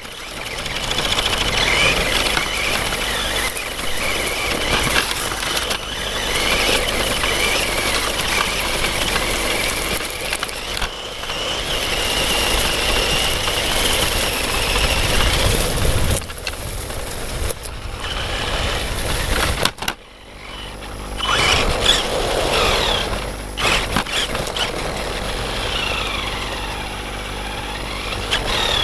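Traxxas E-Revo VXL radio-controlled truck driving, its brushless electric motor and gears whining and gliding up and down in pitch with the throttle over a constant rushing noise. The sound drops away briefly about twenty seconds in.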